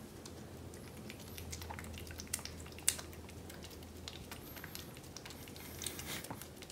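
A kitten eagerly licking and biting a lickable paste treat squeezed from its tube: faint, irregular wet smacking and clicking of tongue and teeth on the paste and the plastic.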